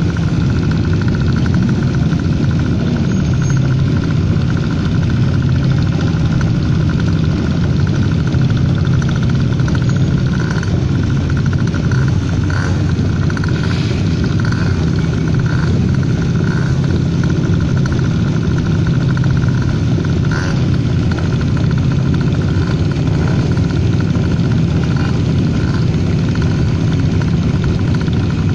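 A column of motorcycles idling and rolling slowly together, a steady low engine drone with a thin steady whine above it.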